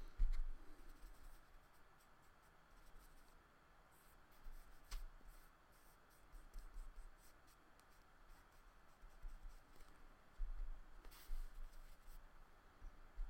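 Paintbrush stroking watercolour onto paper over oil pastel: a faint, scratchy brushing, with a few soft knocks against the table.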